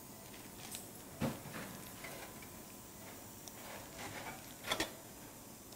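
A few sharp clicks of surgical instruments being handled and passed over a faint steady room hiss. One click comes about a second in, and a quick double click comes near the end.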